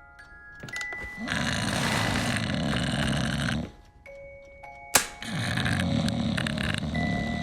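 A person snoring loudly twice, each snore lasting about two seconds, over soft tinkling bell-like music. There is a sharp click just before the second snore.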